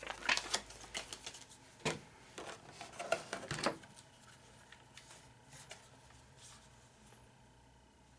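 Clear plastic packaging tray and paper crackling and clicking as a speaker is handled and lifted out. There is a quick run of sharp clicks over the first four seconds, then only faint handling.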